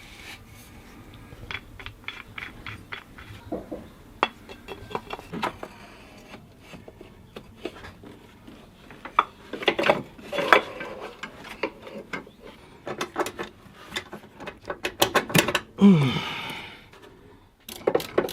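Irregular clicks, knocks and rattles of hand tools and metal parts being handled during work on a car's radiator and hoses, growing busier and louder in the second half, with a short falling squeak about sixteen seconds in.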